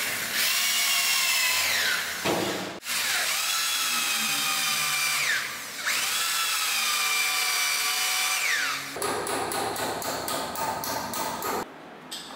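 Electric hand drill boring into wood in three short runs, its motor whine sliding in pitch as the trigger speeds it up and lets it slow. Then comes a rougher, rapidly rattling stretch, which stops shortly before the end.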